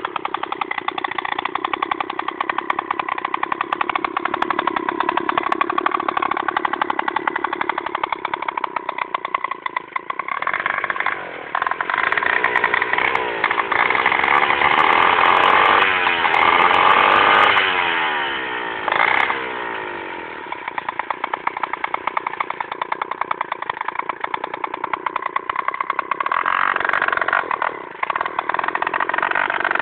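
Druzhba chainsaw's single-cylinder two-stroke engine running on a motorized bicycle, with a rapid, even firing beat. Through the middle the revs climb and fall several times, then settle back to a steadier speed.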